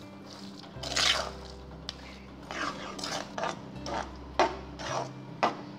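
A spoon stirring and scraping against a metal kadai through boiled chana dal and melting sugar: one stroke about a second in, then a run of short scraping strokes at about two a second.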